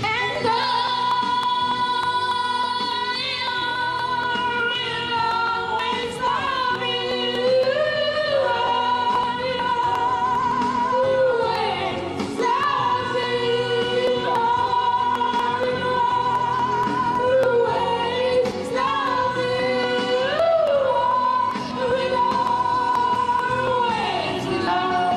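Music with singing: long held, wavering sung notes that slide between pitches, starting abruptly.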